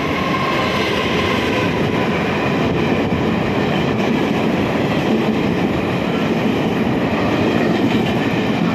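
Locomotive-hauled passenger train running through a station at speed: a loud, steady rush and rumble of the cars' wheels on the rails.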